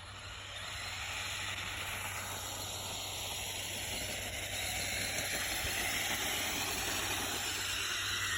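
Toy remote-control side-by-side's electric motor running with its wheels churning snow: a steady hiss with a faint whine that wavers in pitch, growing slightly louder. The car is bogged down in snow too deep to climb.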